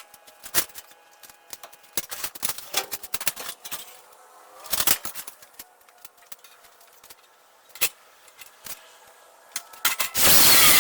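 Scattered clicks, taps and knocks of tools and metal parts being handled, with a short flurry about halfway through. A loud, steady, hissing noise starts near the end.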